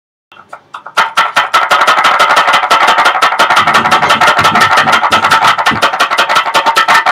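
Electronic music: a fast, even beat of sharp clicks, about ten a second, over a steady buzzing tone, starting faintly and coming in loud about a second in.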